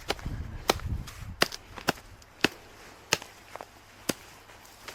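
About six sharp chopping strikes at irregular intervals, a blade hacking into brush or wood.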